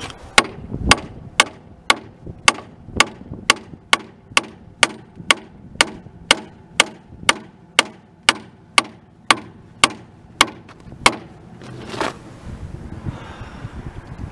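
Hand hammer striking the rusted steel running gear of a 1937 Porter steam locomotive: sharp metal-on-metal blows at a steady two a second, stopping about eleven seconds in.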